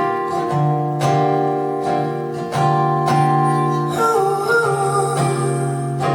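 Acoustic guitar strumming chords in a slow, steady rhythm, with a voice briefly singing a wavering line about four seconds in.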